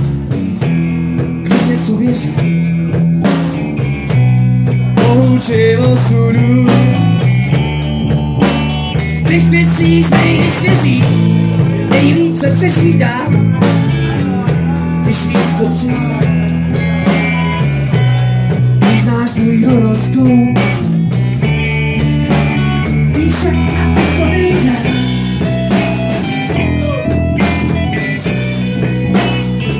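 Small rock band playing an instrumental passage: electric guitars over a drum kit.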